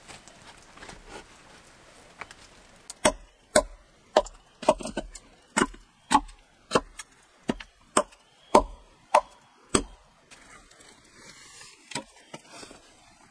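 A hatchet chopping into a wooden log: about a dozen sharp strikes, roughly two a second, starting about three seconds in and stopping near ten seconds. A couple of fainter knocks follow near the end.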